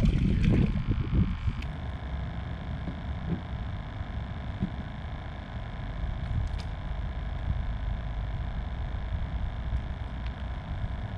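Wind rumbling on the microphone, heavier in the first second or so, with a faint steady hum underneath.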